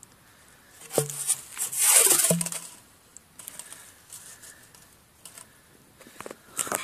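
Rustling and scraping as a 3-inch Ti-salute firework shell is handled and slid down into its mortar tube. The noise is loudest about two seconds in, with a few small clicks after it and another short scrape near the end.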